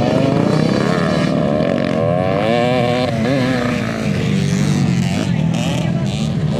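Several motocross dirt bikes racing past, their engines revving up and down in quick rises and falls in pitch as the riders open and close the throttle, over a steady drone of more bikes running.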